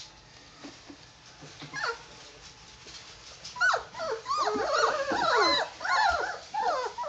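Three-week-old Doberman puppies whining and whimpering, several high, rising-and-falling cries overlapping. One short cry comes about two seconds in, and the chorus starts about halfway through and keeps going.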